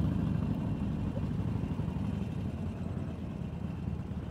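Harley-Davidson V-twin motorcycle engine running at low speed, a steady low-pitched pulsing that fades slightly.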